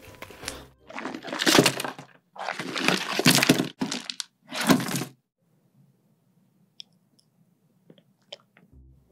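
Crispy fried chicken being bitten and chewed, loud crunching in several bursts over about five seconds. After that it falls nearly quiet, with a few faint clicks.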